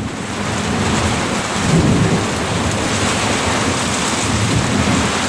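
Heavy rain pouring steadily, with a rolling thunder rumble swelling about two seconds in, following a close lightning strike.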